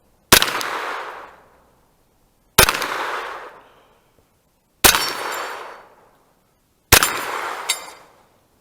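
Four single shots from a semi-automatic rifle, slow and evenly paced about two seconds apart, each echoing away over a second or so. A short metallic clink sounds just after the last shot.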